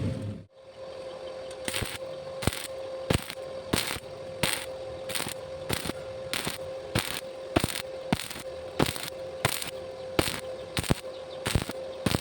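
Welding arc struck in short, evenly paced bursts, about one and a half a second, over a steady hum: on-off stitch welding of thin hollow stock to keep from burning through.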